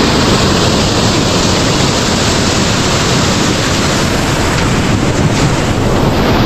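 Waterfall rushing, a loud, steady roar of water.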